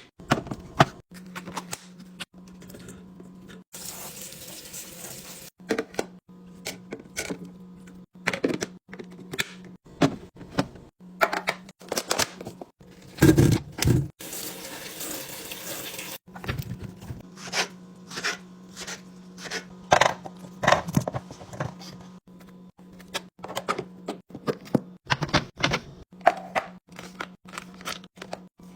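Packaged food and plastic containers handled and set into a fridge: many separate clicks, taps and knocks of lids and containers, with two stretches of hissing noise, about four seconds in and about halfway through. A steady low hum runs underneath.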